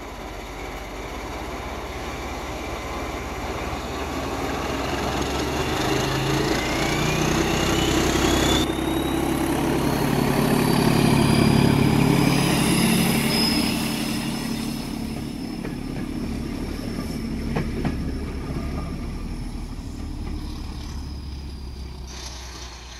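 Class 14 diesel-hydraulic locomotive D9551, with its Paxman Ventura V6 engine, accelerating away and passing close by. The engine note grows to its loudest as the locomotive goes past, while a high whine rises in pitch and then holds steady. The coaches and brake van then follow past as the engine fades.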